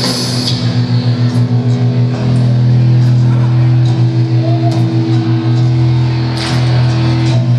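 Live punk rock band playing loud: distorted electric guitars and bass hold a low chord, chugging in a steady pulse. Crowd shouts come through now and then.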